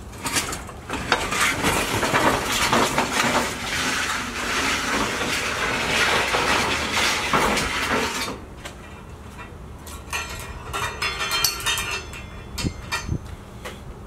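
Rogue Sled Dog 2.0 steel weight sled pushed over an asphalt driveway, its base scraping and grinding along the ground for about eight seconds. Then the scraping stops, leaving scattered light metal clinks.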